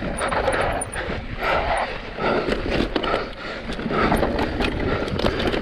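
Mountain bike racing down a dry dirt trail: a steady rumble of tyres and wind on the microphone, with many small clicks and rattles from the bike over the rough ground. Over it come the rider's quick, hard breaths, repeating every half second or so.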